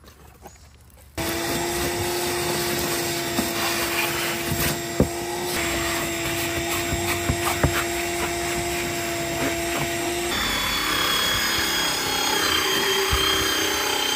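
Vacuum cleaner switched on about a second in and running steadily, with a few sharp knocks; its tone changes about ten seconds in.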